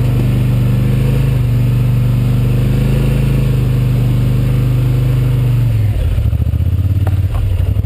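Quad bike (ATV) engine running at a steady, even throttle, then dropping to a lower, uneven note about six seconds in, with a couple of short knocks shortly after.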